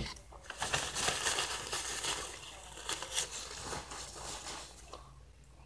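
Sheet of paper rustling and crackling as it is handled and laid flat on a table, after a sharp tap at the start. The rustling fades out about four and a half seconds in.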